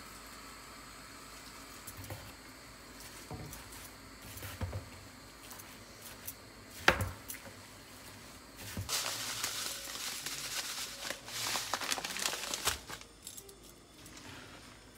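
Metal tongs tossing a bowlful of chopped chives, shrimp and flour in a plastic colander bowl: a dense, crinkly rustling of leaves and batter for about four seconds in the second half. Before it, scattered light clicks from shaking in salt and handling utensils, with one sharp knock about halfway.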